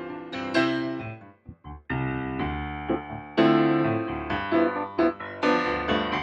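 Solo grand piano playing: struck chords that ring and fade. There is a brief hush with a few soft low notes just before two seconds in, then fuller chords return, the loudest about three and a half seconds in.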